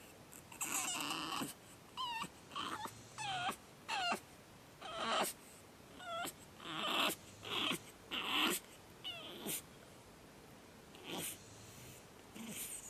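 Pug puppy crying in its crate: a run of short yelps and high whines, several falling in pitch, with louder screaming cries around the middle that thin out to a few occasional whimpers near the end.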